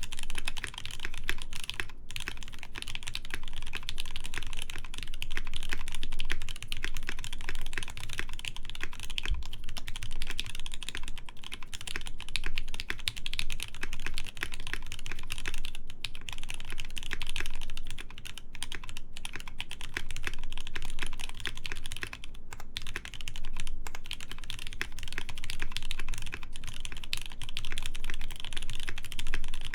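Continuous fast typing on a mechanical keyboard with lubed JWK Snow White linear switches, polycarbonate plate and PBT keycaps: a dense stream of muted key clacks with only brief pauses.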